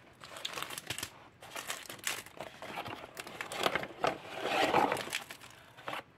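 Clear plastic packaging bags crinkling and rustling as kit parts are handled and taken out of a cardboard box, in short irregular bursts.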